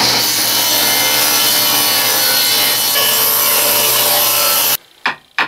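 Table saw running and ripping a softwood board along the fence: a loud, steady blade noise over a motor hum. It cuts off abruptly near the end, followed by two short knocks.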